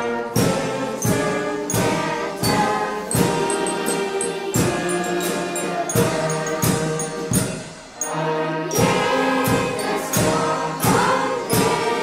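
Choir singing a traditional St. Martin's song in Lower Rhine dialect, with instrumental band accompaniment and a steady beat.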